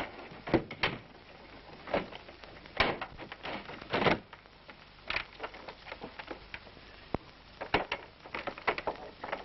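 Scattered knocks and thumps of a travel trunk being shut and handled, over the steady hiss of an old film soundtrack.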